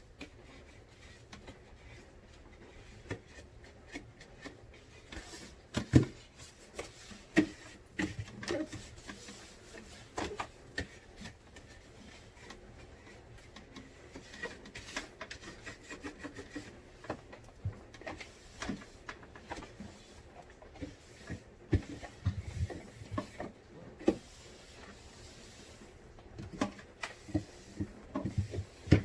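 Hand-cleaning inside a refrigerator: rubbing and scrubbing with scattered knocks and clatter as shelves and containers are handled. The loudest knock comes about six seconds in, and a quick run of knocks comes near the end.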